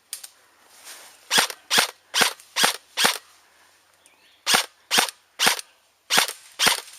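Airsoft gun firing single shots in quick strings, a sharp crack about every 0.4 to 0.5 seconds: five shots, a pause, three more, then two near the end.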